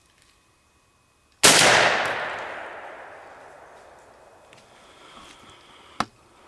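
A single shot from a Benelli M2 semi-automatic shotgun loaded with number 7 shot, about a second and a half in, with its report echoing away over about two seconds. This is a follow-up shot to finish a wounded squirrel. A short sharp click comes near the end.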